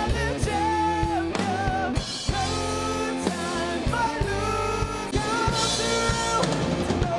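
A song playing: a singing voice over a drum kit and guitar.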